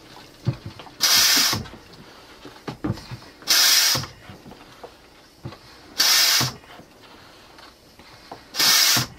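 Vacuum oil extractor's suction tube gulping air in four loud rushes about two and a half seconds apart, with faint crackles between them. The oil in the engine's sump has dropped below the tip of the tube, so it is drawing air along with the last of the oil.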